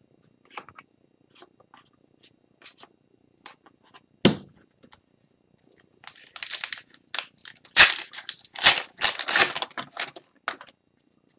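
Foil wrapper of an Upper Deck Series 2 hockey card pack being torn open and crinkled, loudest in the second half, with sharp tearing bursts. Before it come faint clicks of cards being handled and a single knock a little past four seconds in.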